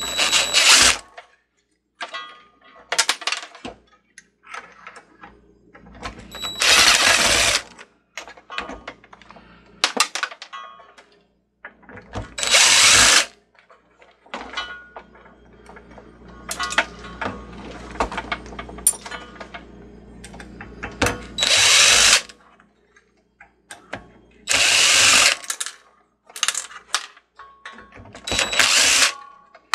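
DeWalt 20V cordless drill/driver running in short bursts of about a second, about six times, backing screws out of a metal chassis. Light clicks and knocks of handled metal parts come in between.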